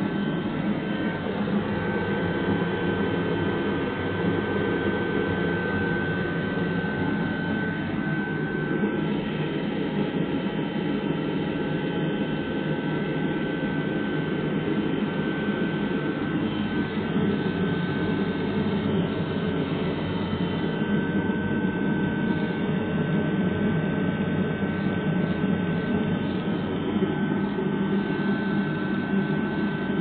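Eberspächer Hydronic D5WZ diesel water heater running hot on a test bench: a steady rushing noise from its burner and combustion-air fan, with a thin high whine over it that fades out for a while in the middle.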